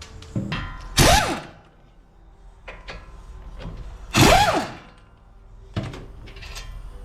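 A power tool run in two short bursts, each with a hiss and a whirring pitch that rises and falls, about a second and about four seconds in, while an ABS speed sensor is being fitted to a vehicle. Scattered clicks and knocks of work come between the bursts.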